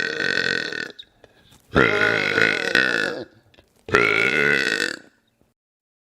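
A man burping: the tail of one long burp ends about a second in, then two more drawn-out burps of about a second each follow, each with a clear pitch.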